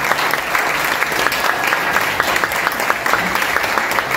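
Audience applause: many people clapping steadily in a room.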